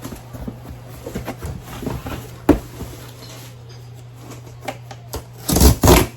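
Cardboard shoe box being opened and handled: scattered rustling and scraping, a sharp knock about two and a half seconds in, and a louder burst of rustling near the end, over a steady low hum.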